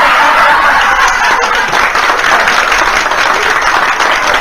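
Live audience applauding a joke's punchline, a dense spell of clapping.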